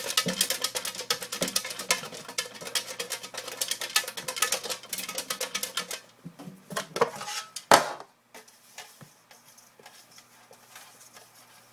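Rapid clattering rattle of raffle entries being shaken and stirred in a container for the draw, for about six seconds. Then a few scattered knocks, one loud knock near eight seconds, and quieter handling.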